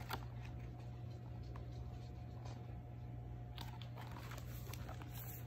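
Quiet room with a steady low hum and a few faint taps and rustles from a hardcover picture book being held up and moved in the hands.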